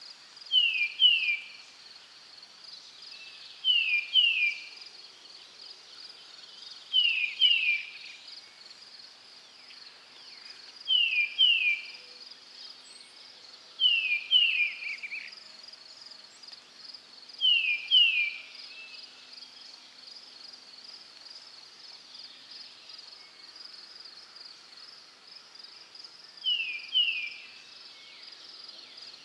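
A bird repeating a call of two quick descending notes about every three to four seconds, over a steady high insect trill like crickets.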